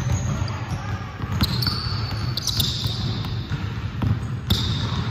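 Basketballs being dribbled on a hardwood gym floor: repeated sharp bounces at an uneven pace.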